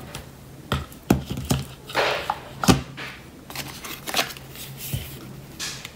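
Hands handling an iPhone 14 Pro Max's cardboard box and its paper document envelope: a run of light clicks and taps, a brief rustle of card, and one sharper tap a little under three seconds in, the loudest sound.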